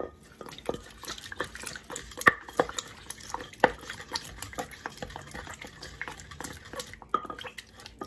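Wooden pestle stirring and knocking in an earthenware mortar: an irregular run of taps and scrapes with a few louder clacks. The pestle is mixing a Thai seafood dipping sauce of pounded chili and garlic as fish sauce is poured in.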